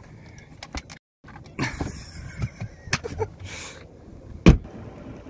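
Scuffs, rustling and light clicks of someone moving about beside a car, broken by a short dropout about a second in. One sharp knock near the end is the loudest sound.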